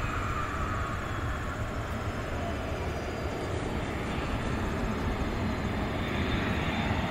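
McDonnell Douglas MD-88 jet on final approach, its rear-mounted Pratt & Whitney JT8D turbofans giving a steady rumble. A whine slides down in pitch over the first second, and the sound grows a little louder near the end as the jet comes closer.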